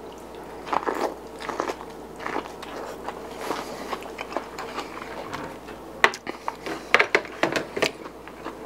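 Biting into and chewing a piece of steamed corn on the cob, close to the mic: soft wet crunching and mouth clicks. A cluster of sharper clicks and taps comes near the end.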